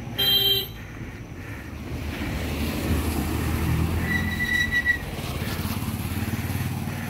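A small car and then a motorcycle drive past close by at low speed, their engines running as a low rumble that builds to its loudest a few seconds in. A short, loud, high beep sounds near the start.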